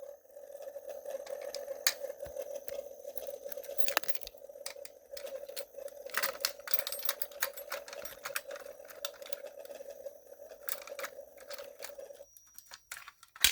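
Fire alarm bell, set off from a pull station, ringing steadily, then cutting off suddenly about twelve seconds in as the bell stops working. Scattered clicks and knocks over it.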